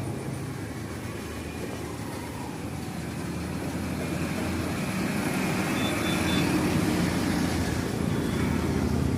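An engine running steadily with a low hum, growing louder about halfway through.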